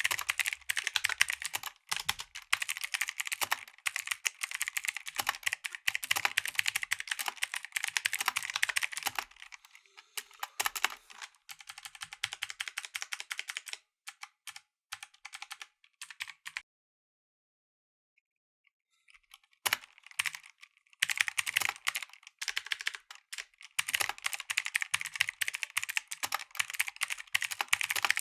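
Mechanical keyboard with clicky blue switches being typed on rapidly, a fast run of sharp clicks. The typing thins out about halfway through, stops for about three seconds, then picks up again at full speed.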